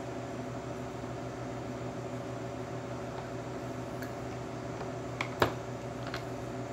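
Steady hum of laboratory equipment, with a few light clicks of plastic transfer pipettes knocking against test tubes in a rack, the loudest a sharp double click about five seconds in.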